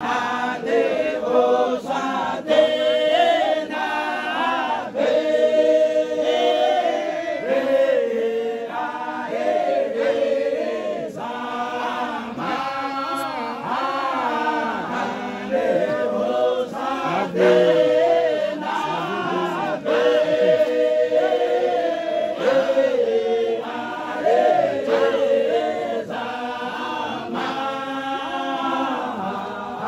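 A group of men chanting together, singing long held notes that bend up and down in phrases of a few seconds.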